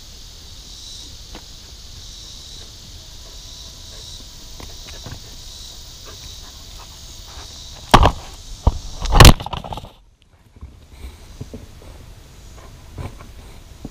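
Steady high-pitched insect buzz in summer heat. About eight seconds in come several loud knocks and scrapes as the camera is bumped and tipped over onto the rocks, after which the sound goes briefly dull.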